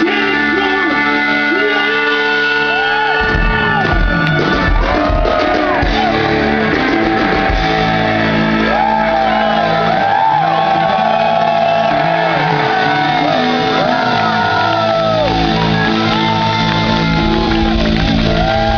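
Live rock band playing loud blues-rock: electric guitar with bending notes over bass and drums, heard from the audience.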